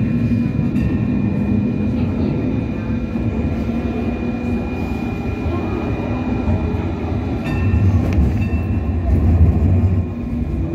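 Hong Kong Light Rail first-generation (Phase I) light rail car running along the track, heard from on board: a steady low rumble with thin steady high tones over it. The rumble grows louder about eight seconds in, with a click just before.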